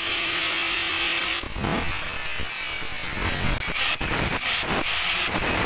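Handheld angle grinder running, first spinning with a steady whine, then about a second and a half in biting into a rusty steel gear and grinding with a rough, uneven hiss as it cuts.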